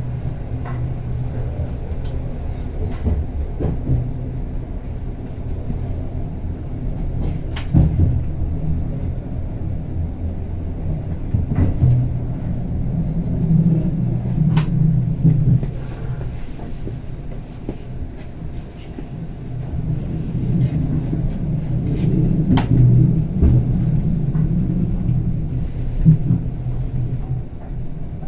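Bernina Express train running along the track, heard from inside the carriage: a steady low rumble with a few sharp clicks and knocks.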